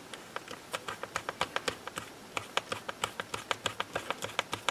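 Screwdriver clicking quickly, several small sharp clicks a second, while driving the small Phillips screws that hold the laptop's hard-drive ribbon cable in place.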